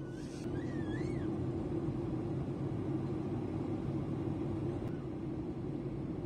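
Steady drone of a jet airliner's cabin in flight, a dense low rumble. A brief high, wavering sound rises and falls once near the start.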